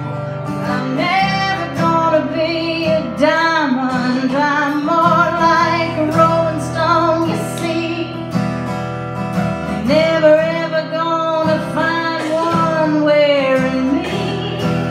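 A woman singing with a melody that wavers in vibrato, over a strummed acoustic guitar.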